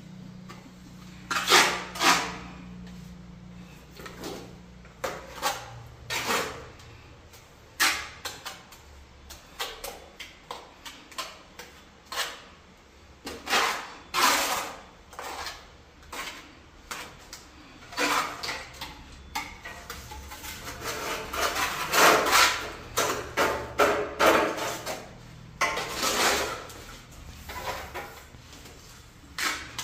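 Irregular knocks, bangs and clatters of household objects being handled, some sharp and some longer and scraping, over a faint steady low hum.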